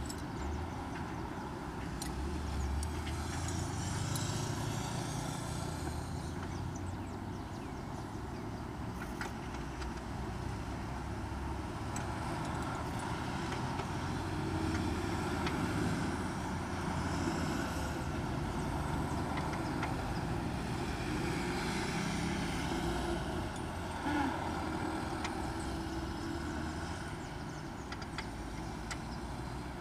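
Road traffic passing: a steady rumble of vehicles that swells and fades twice, with a few faint clicks.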